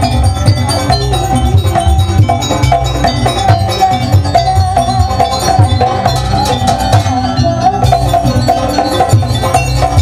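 Live Javanese jaranan gamelan music: kendang hand drums beating a dense rhythm under a held, slightly wavering melody line.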